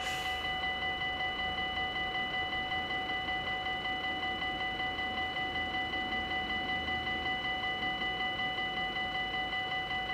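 Dutch level-crossing warning bells ringing in a fast, even, metallic repeat, the signal that the crossing is closed for an approaching train.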